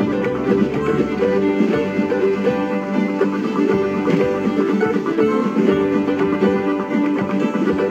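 Bluegrass-style music played on plucked strings, banjo and guitar, at a brisk, even pace.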